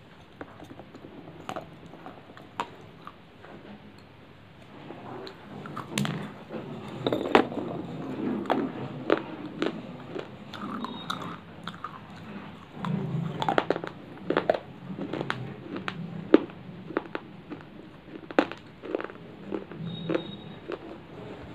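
A person biting and chewing pieces of hard baked clay close to the microphone. The crunching and cracking crackles are sparse at first and come thick and fast from about five seconds in, with a few loud snapping bites.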